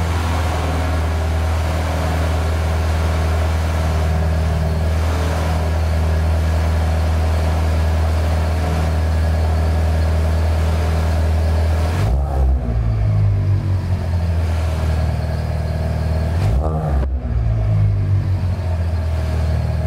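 Alfa Romeo GTV engine running just after start-up, loud and echoing through its exhaust, whose centre silencer has been removed. It runs steadily for about twelve seconds, then the revs rise and fall a few times.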